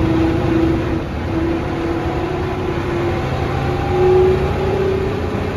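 Mercedes-Benz O405NH bus driving, heard from inside the cabin: a low drivetrain rumble under a wavering gear whine from its ZF automatic gearbox and hub-reduction rear axle. The whine swells briefly about four seconds in.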